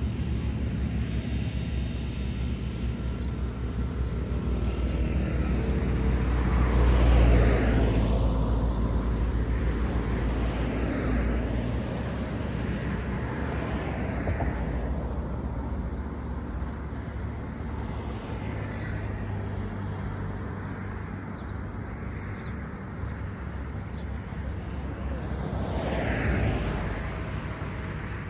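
Motor traffic passing: a steady low rumble with two vehicles swelling and fading, the louder about seven seconds in and another near the end.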